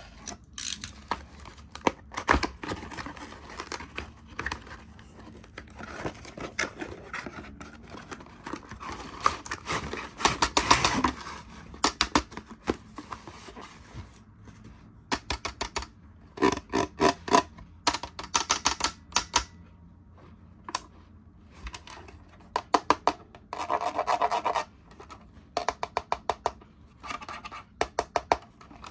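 Toy packaging being handled and opened: scratching and scraping of plastic and cardboard with irregular clusters of sharp clicks, a longer louder scrape about ten seconds in.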